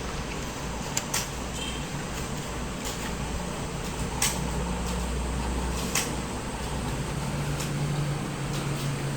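Steady low hum in the room with a few scattered sharp clicks, keys of a computer keyboard being struck during a typing test.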